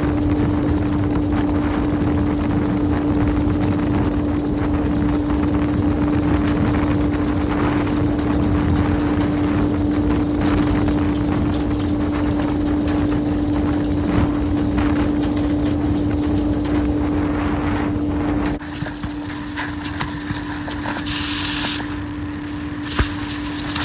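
Duct-cleaning vacuum machine running steadily, with a constant hum over a rush of air. Near the end the rumble drops and the sound turns thinner and hissier.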